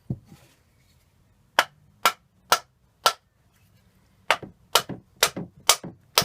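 Sharp tapping knocks on a seized part of a Lewmar 34 self-tailing winch as it is driven out: one dull thump, then four strikes about two a second, a short pause, and a quicker run of about six more. The part is stuck fast with old grease.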